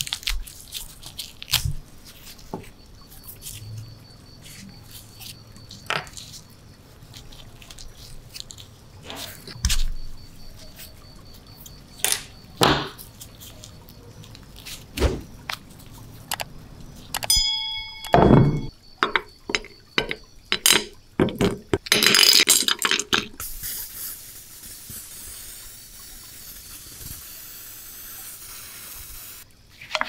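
Scattered clicks, taps and scrapes of a small rusty toy tractor wheel and tyre being handled and pried apart by gloved hands. About halfway through there is a short chime, then a noisy rush and a steady hiss that runs until just before the end.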